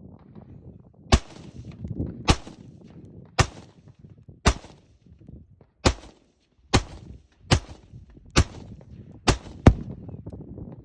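Ten gunshots fired one at a time, about a second apart, the last two in quick succession. Each is a sharp crack with a short echo.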